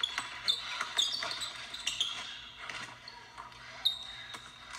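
A basketball dribbled hard on a hardwood gym floor, with sneakers squeaking in short, high chirps as the players cut; several bounces and squeaks, the loudest a little before the end.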